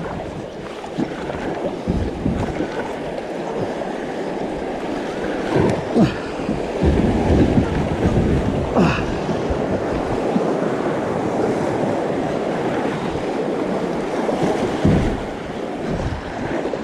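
Creek water rushing over a shallow rapid around a kayak, louder a few seconds in as the boat runs the whitewater, with the splashes of double-bladed paddle strokes and wind on the microphone.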